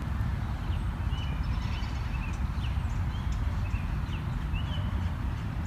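Small wild birds chirping faintly in short, scattered notes over a steady low rumble.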